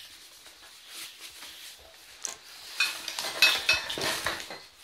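Metal kit items clinking and clattering against each other and the table as gear is handled, in a run of sharp knocks with brief metallic ringing starting about two seconds in.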